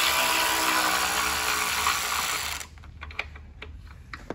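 Cordless electric ratchet running for about two and a half seconds as it spins out an engine bolt, then stopping, followed by a few light clicks of tool and metal.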